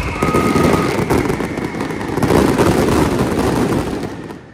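Dense barrage of fireworks and firecrackers crackling and banging rapidly, with a high whistle falling slowly over it. It cuts off suddenly near the end.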